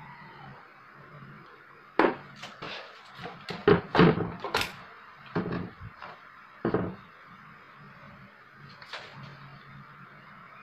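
A series of knocks and clatters as a CRT TV's circuit board is handled and set back into the TV's plastic cabinet, starting about two seconds in and dying away a few seconds later.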